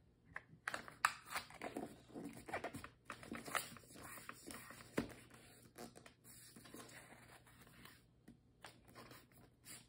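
A sheet of paper being folded and creased by hand: faint irregular rustles and crinkles with short sharp taps, busiest in the first few seconds and thinning to soft rustles later.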